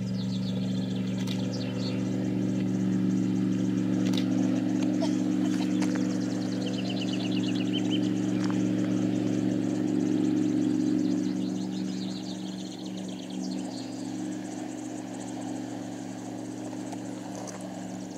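Jet boat engine running at a steady drone as the boat speeds along the river, fading away after about twelve seconds. Small birds chirp and trill now and then.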